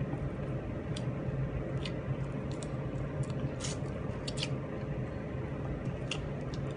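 A person chewing and eating fish by hand, with scattered short wet clicks and smacks of the mouth every second or so over a steady low hum.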